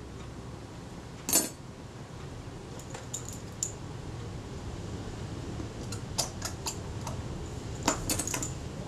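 Small metallic clicks and clinks of tweezers and a fine screwdriver against a camera lens mount as tiny screws are set back in. A sharper click comes about a second and a half in, then scattered light ticks, with a quick cluster near the end.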